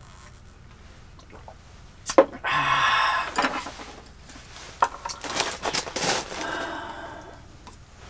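A sharp glass clink about two seconds in, then soju being poured from the bottle into a small glass, with a second, longer pour later.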